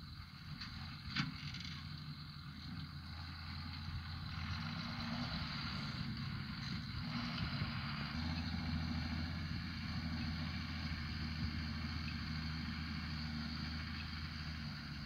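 Distant John Deere loader tractor's diesel engine running steadily while it maneuvers round hay bales with its front grapple. The engine note grows louder about eight seconds in. A single sharp click comes about a second in.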